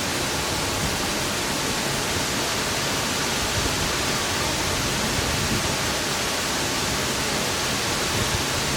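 Waterfall's steady rush of falling water, loud and unbroken.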